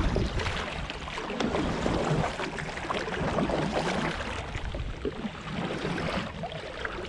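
Kayak paddle strokes: a double-bladed paddle dipping on alternate sides, splashing and swishing through the water in a steady run of strokes.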